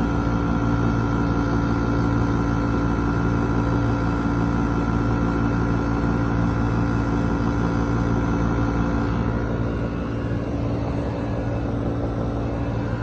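Window air conditioner running: a steady hum of compressor and fan, with a few fixed tones, easing slightly about ten seconds in.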